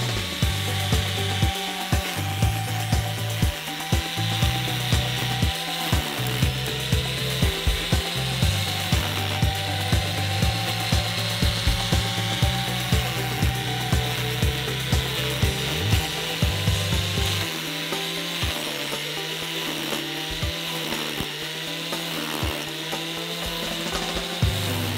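Homemade grass cutter built from an electric angle grinder, its motor running steadily with a high whine while the spinning blade cuts dry grass.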